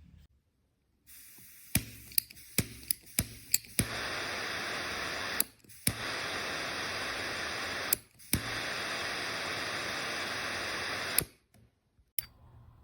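Zippo 65827 double-torch butane lighter insert: a quick run of sharp ignition clicks, then the steady hiss of the torch jets burning. The hiss cuts out and is relit with a click twice, then stops with a click near the end.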